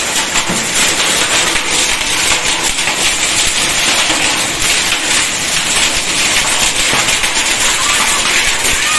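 Heavy downpour mixed with hail: a loud, steady hiss of rain on concrete, thick with the quick patter of drops and hailstones striking.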